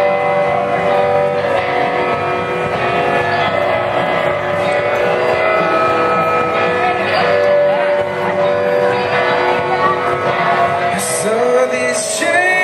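Live metalcore band playing the opening of a song, heard from the crowd: sustained guitar chords ring out, and a voice starts singing near the end with cymbal crashes.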